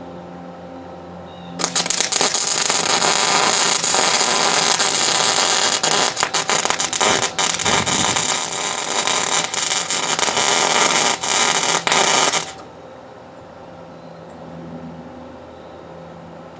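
An electric welder's arc crackling and spitting loudly for about eleven seconds, then cutting off abruptly, as weld is laid onto a broken exhaust manifold bolt stub in an LS cylinder head. A low steady hum is heard before and after.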